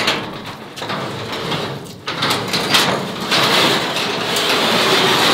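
A sectional garage door being moved by hand along its metal tracks, a long rattling noise that grows louder about two seconds in.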